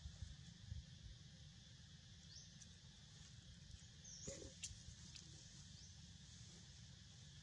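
Near silence: faint outdoor ambience with a steady low hum and a high hiss, broken by a few short faint high chirps and a click, the loudest about four seconds in.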